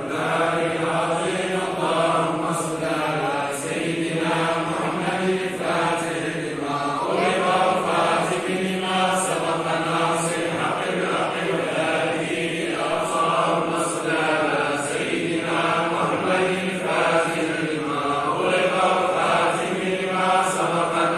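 A group of men chanting together in unison, a continuous vocal chant broken by short pauses.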